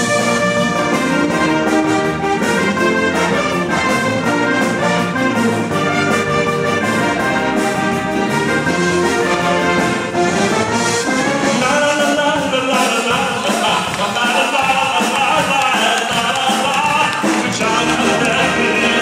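Live wind orchestra of brass and woodwinds playing a dance tune with a steady beat.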